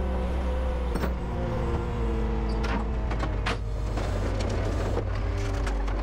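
Heavy equipment's diesel engine running steadily, with a wavering hydraulic whine and a few short metallic clunks.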